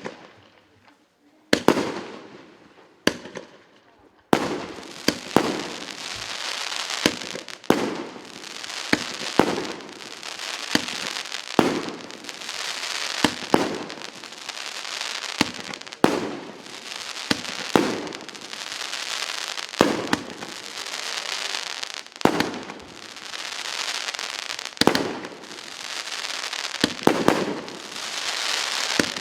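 A 150-shot, 1.2-inch firework cake firing shot after shot, a sharp bang about every second and a half. From about four seconds in, a dense crackling of bursting sparks fills the gaps between the bangs.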